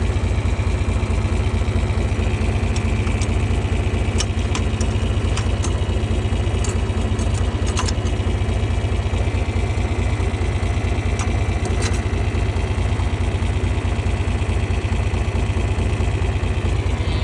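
John Deere tractor engine running steadily at a low, even beat, with a few light clicks and knocks over it as the driver tries to get it into gear.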